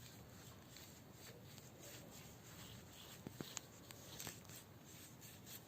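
Near silence with faint rubbing and a few light clicks: a paintbrush working acrylic paint onto bamboo sticks laid over paper.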